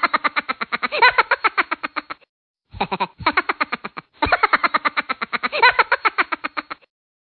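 Comic sound effect laid over the picture: a fast, bouncy run of pitched pulses, about nine a second, like sped-up cartoon laughter. It comes in three spells with short breaks between and stops shortly before the end.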